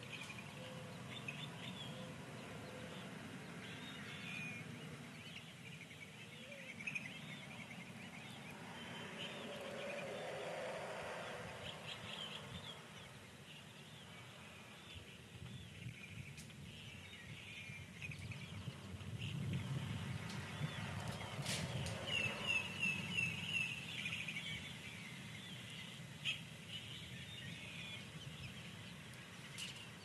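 Newly hatched chicks and a duckling peeping in a brooder: short, high peeps scattered throughout, with a quick run of several in a row a little over twenty seconds in, over a low background rumble.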